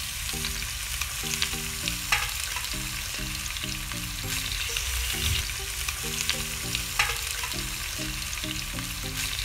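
Chicken pieces sizzling in hot oil in a pot, being seared over medium heat to seal them, with a few sharp pops of spattering oil. Light background music with short repeated notes plays underneath.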